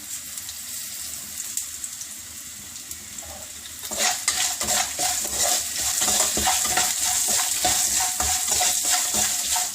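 Dal, peanuts and spices frying in sesame oil in a kadai, with a steady sizzle. About four seconds in it gets louder, with the quick scrapes and clicks of a spatula stirring the pan.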